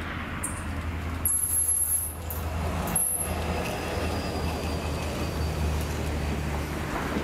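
Renfe Class 334 diesel locomotive hauling a Talgo train past at close range: a steady low engine drone over the rumble of wheels on rail as the coaches roll by. Two brief high-pitched wheel squeals come about a second and a half in and about three seconds in.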